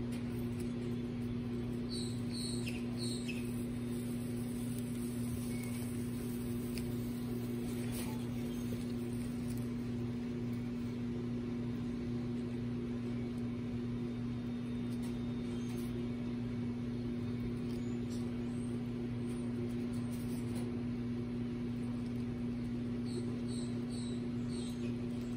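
A steady low machine-like hum that does not change, with a few brief high chirps about two seconds in and again near the end, and scattered faint clicks.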